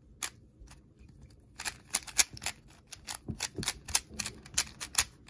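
QiYi MS 3x3 magnetic speed cube being turned by hand, its plastic layers clicking sharply as they turn. The clicks are sparse at first, then come several a second from about a second and a half in.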